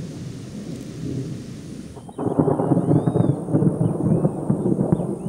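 Thunderstorm ambience: rumbling thunder with rain. About two seconds in it turns louder and more muffled, with a few faint high chirps over it.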